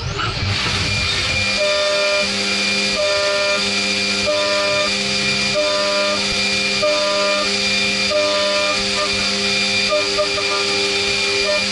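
Haas VF4 vertical machining centre roughing a part on its rotary 4th axis with a 10 mm bullnose end mill, spindle at 9000 rpm, under flood coolant. A steady coolant-spray hiss and a high spindle whine run underneath a cutting tone that comes and goes in a regular cycle as the adaptive toolpath loops in and out of the cut. Near the end the cycle changes to quicker short pulses.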